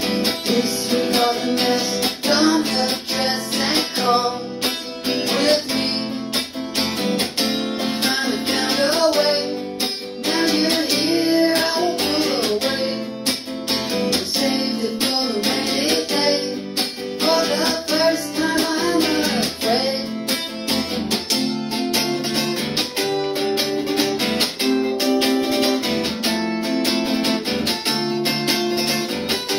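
Chords strummed on an archtop guitar, with a man singing over them through the middle part.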